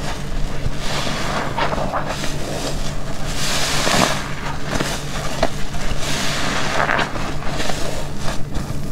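A black car wash sponge full of shampoo being squeezed and released, giving a wet squelching, crackling noise. It swells loudly about halfway through and again near the end.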